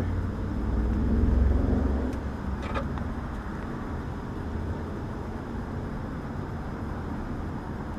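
A low mechanical rumble that swells over the first two seconds, then runs on steadily and more quietly.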